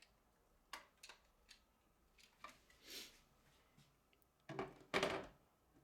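Small plastic toy water blaster being handled: a few light clicks and knocks, then a louder clatter of plastic knocks near the end.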